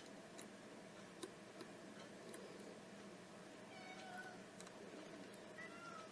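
Domestic cat meowing twice, once about four seconds in and again near the end, over scattered light clicks of lock picking tools working in a pin tumbler cylinder.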